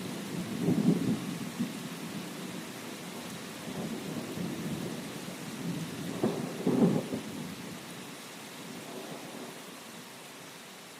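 Steady rain with rolling thunder. Low rumbles swell about a second in and again around six to seven seconds, then the thunder dies away and the whole sound fades toward the end.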